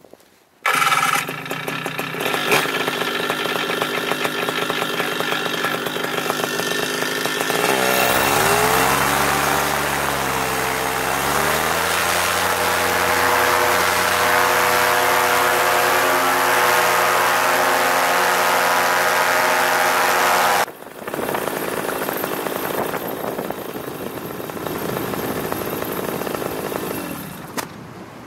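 Paramotor engine and propeller throttled up for takeoff. It starts running abruptly about a second in, dips in pitch and climbs back partway through, then runs steady at high power. Near two-thirds of the way through it drops suddenly to a quieter, noisier sound with less engine tone.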